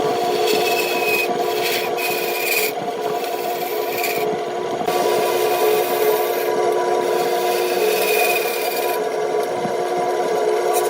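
Wood lathe running with a steady hum while a tool scrapes against the spinning wood in on-and-off passes, with a short high squeal now and then.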